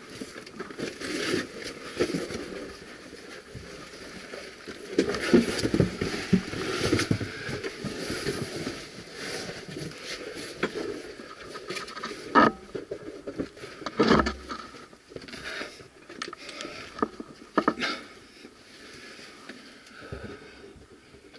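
A person crawling through a tight rock passage: caving oversuit and gear scraping and rustling against stone, with scattered knocks and clicks on rock. Two sharper knocks come about 12 and 14 seconds in.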